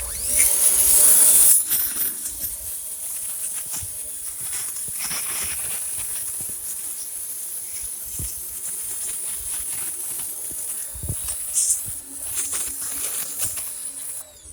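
Powermate 1800 PSI electric pressure washer running, its high-pressure water spray hissing over the steady hum of the electric motor and pump. Loudest in the first second and a half, then steady, with a few short knocks.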